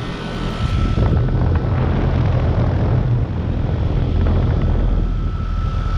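Goodman GLZS4B heat pump outdoor unit running in heat mode: a deep compressor hum under the rush of its condenser fan, stepping up in loudness about a second in and then holding steady, with a faint steady whine on top.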